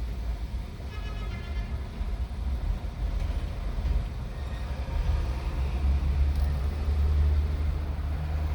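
Low rumble of road traffic or a motor vehicle nearby, growing louder in the second half, with a brief high-pitched sound about a second in.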